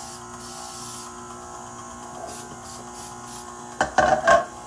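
A few short hisses of cooking spray into a bundt cake pan about two to three seconds in, over a steady electric motor hum. Near the end comes a louder knock and a short vocal sound.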